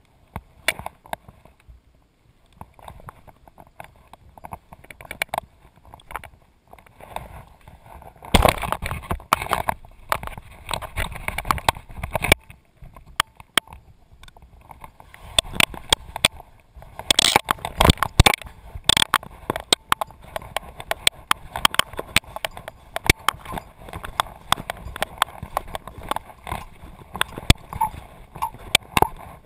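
Handling noise close to a body-worn action camera: irregular knocks and clicks with rustling of clothing and dry leaves, getting louder and busier about eight seconds in and again around seventeen seconds.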